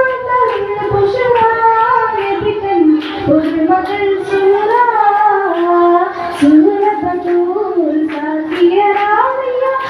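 A girl singing a Mappila song (mappilappattu) solo into a microphone without accompaniment, her voice gliding and wavering in pitch across long held notes.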